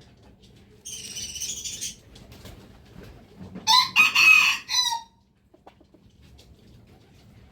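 A rooster crows once, loudly, about three and a half seconds in, for a little over a second, dropping in pitch at the end. It is preceded by a fainter, higher call about a second in.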